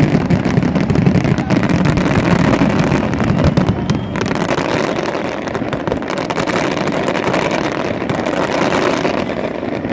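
Fireworks display: a dense, continuous barrage of bangs and crackling, easing off a little in the last few seconds.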